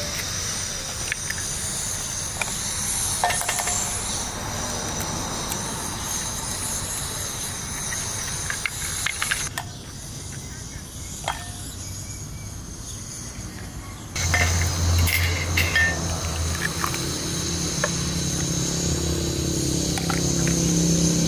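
Eggs being tapped and cracked on the rim of a bowl, a few sharp taps scattered through, over a steady high outdoor hiss. About two-thirds of the way through a low steady hum comes in and the sound grows louder.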